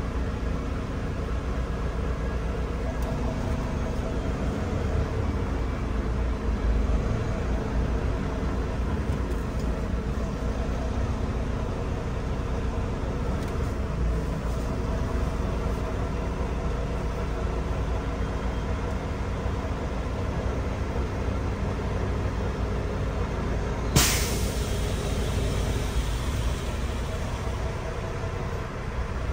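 Semi-truck's diesel engine running with a steady low rumble, heard from inside the cab as the rig rolls slowly. Near the end comes a sudden sharp hiss of air, the truck's air brakes being set as it stops.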